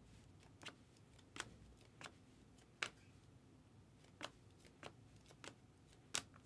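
Faint clicks and snaps of stiff chrome baseball cards being flipped through one at a time in the hands, about eight at uneven intervals.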